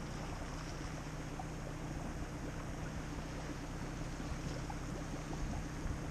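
Steady rushing noise of river water and wind around a drifting aluminium skiff, with a low steady hum underneath.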